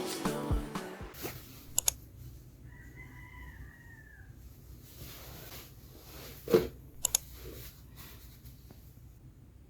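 Faint rooster crow in the distance, one drawn-out call lasting about a second and a half, over quiet room tone; a few sharp clicks and a short knock come later, as backing music fades out at the start.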